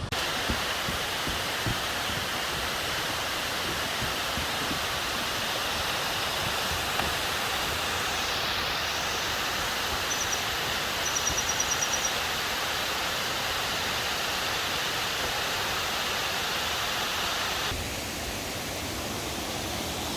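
Steady rush of falling, tumbling water in a mountain gorge. A short high-pitched trill sounds about ten seconds in, and the water sound drops slightly in level near the end.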